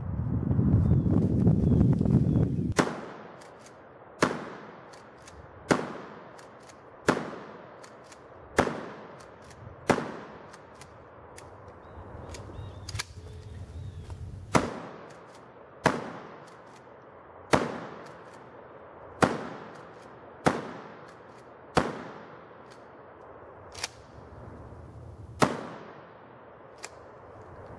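Remington 870 12-gauge pump shotgun firing over and over, about a dozen and a half shots at a steady pace of roughly one every second and a half, each crack trailing off in an echo. A loud low rumble fills the first three seconds before the shots start.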